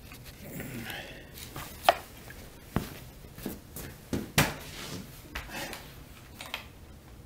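Handling noise in a small room: footsteps on a concrete floor and a series of separate sharp knocks as a chainsaw is carried over and set down on the concrete, the loudest knock a little past four seconds in.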